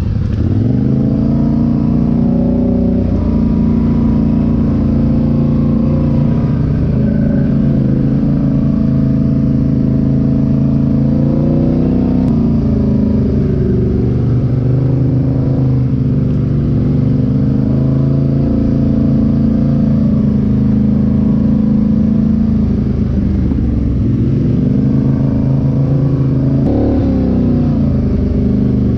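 Polaris Sportsman 850 ATV's twin-cylinder engine running through a Big Gun EVO U exhaust with the quiet insert fitted, riding along at part throttle. The engine note climbs in the first second, then rises and falls with the throttle several times, easing off and picking back up near the end.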